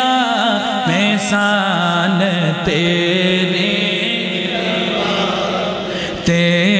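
Naat music interlude: a voice sings a wordless, ornamented melody, sliding between notes over a steady low drone. The drone swells louder again shortly before the end.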